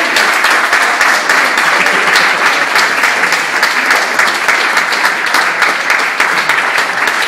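Audience applauding: many hands clapping in a dense, irregular patter that holds steady throughout.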